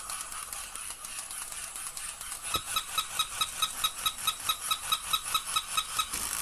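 Old toy dog's mechanism running. About two and a half seconds in, a fast, even run of ringing clicks starts, about five a second, and stops just before the end.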